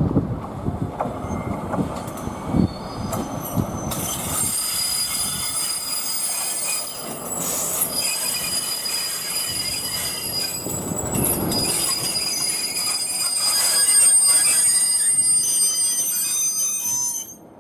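Freight train rolling past with a low rumble and knocking of wheels, then high, steady wheel squeal against the rails from about four seconds in; the sound drops away suddenly just before the end.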